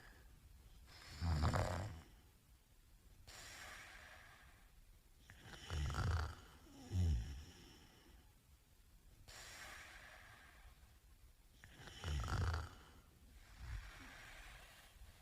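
A sleeping man snoring: loud, low snores about every five to six seconds, one of them followed closely by a second shorter snore, with quieter airy breaths in between.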